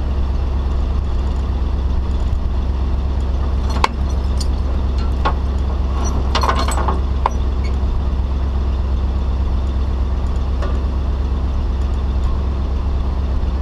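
Tow truck engine idling steadily, with a few sharp metallic clanks from the hook-up gear at the rear: one about four seconds in and a short cluster around six to seven seconds.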